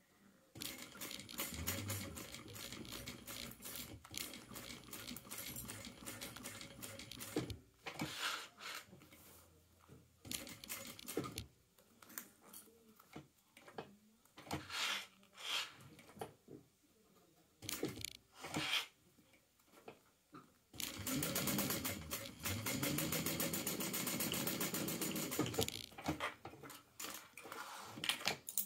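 Sewing machine stitching around the edge of a layered purse organizer: a steady run of stitching, then several short bursts and single stitches while the work is turned and guided, then a second steady run a few seconds before the end.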